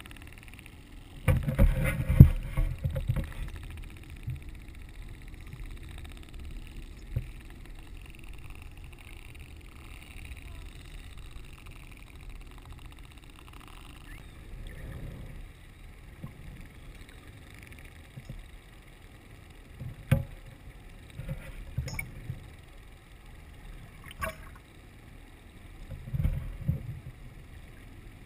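Underwater sound picked up by a camera: irregular bursts of water rushing and knocking around it. The loudest burst comes about a second in, and a few sharp clicks follow later.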